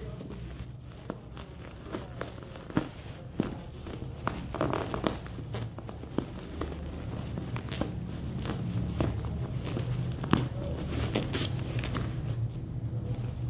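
Scissors cutting through black bubble-wrap packaging, with irregular sharp snips and clicks over the crinkling and crackling of the plastic; near the end the wrap is pulled apart by hand.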